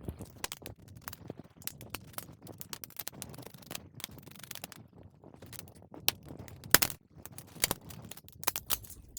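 HP PS-4241-9HA computer power supply being opened by hand: a run of small clicks, scrapes and metallic rattles, with a few sharper knocks about six to eight seconds in.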